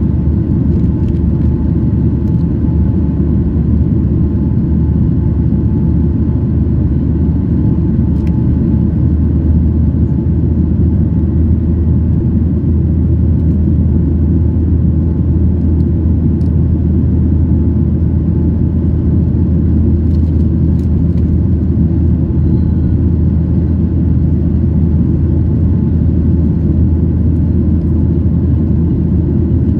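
Cabin noise of a Boeing 737-800 in flight, heard from a window seat over the wing: its CFM56-7B engines and the rushing air make a loud, even, deep rumble. A faint steady whine sits above the rumble.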